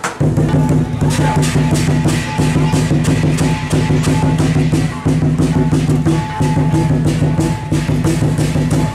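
Chinese lion dance percussion: a big drum, crash cymbals and a gong playing a driving, steady beat.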